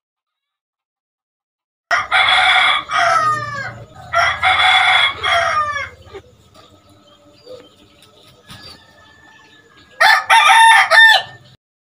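Domestic rooster crowing: after about two seconds of silence, two loud crows in a row, each ending in a drawn-out falling tail, then a third shorter crow near the end.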